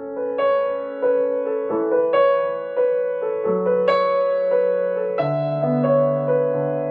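Background music: a slow piano melody, new notes struck about every half second to second over held low notes.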